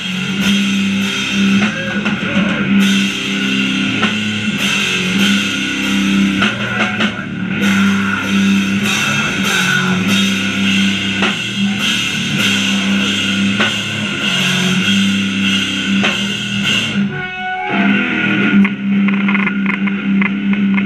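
Hardcore punk band playing live: distorted electric guitar, bass guitar and drum kit with cymbals. About seventeen seconds in the music breaks off for a moment, then the band comes back in.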